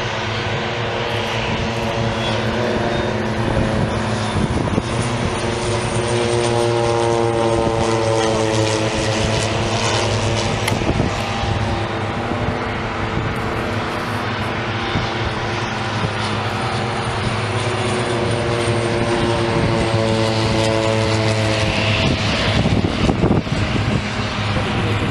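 Propeller aircraft flying over with a steady engine drone. It swells and shifts slightly in pitch as the planes pass, once about a third of the way in and again near the end.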